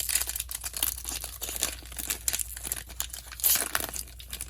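Foil booster pack wrapper crinkling and crackling in the hands, in quick irregular bursts, as it is handled and opened.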